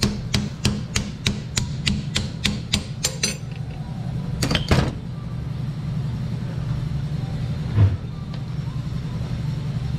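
Hammer tapping the split inner race of a semi truck carrier bearing off the driveshaft spline shaft: quick metal strikes about three a second for the first three seconds, two harder strikes a little later, then one dull thump near the end, over a steady low hum.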